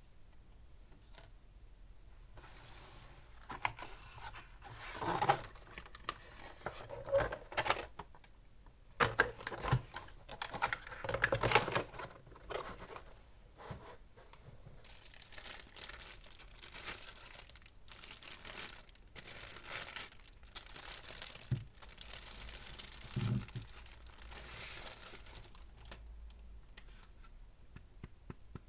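Packaging being unwrapped by hand: irregular bursts of crinkling and tearing, loudest in the first half, with a couple of dull knocks later on.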